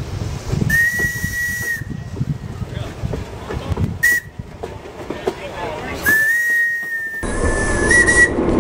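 Steam locomotive whistle blowing several times: a blast of about a second, a short toot, then a longer blast of about two seconds near the end, over the low rumble of the train rolling along the track.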